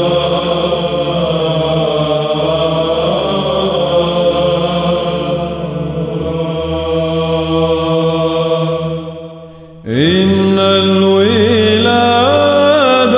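Byzantine chant in Arabic: male voices sing a long melismatic phrase over a held drone. The chant fades out about nine seconds in, and a new chanted phrase starts abruptly over a fresh drone a second later.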